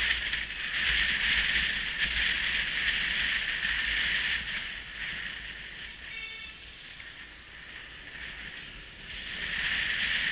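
Motor scooter riding on a city street: a steady hiss of wind and road noise over a low engine rumble, easing off after the first few seconds and rising again near the end.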